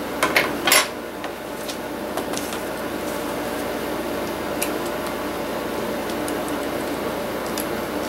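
A few sharp clicks and knocks in the first second as a laptop LCD panel and its metal side mounting bracket are handled and the bracket is set down, then a couple of faint ticks over a steady background hum.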